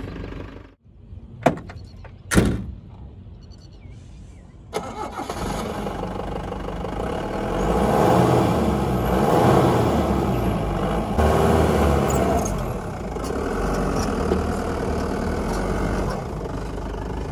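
Engine of a small Tata car converted into a flatbed pickup, revving and pulling as it drives over loose dirt mounds, loudest around the middle. Before it comes in, about five seconds in, there is a quieter stretch with two sharp knocks.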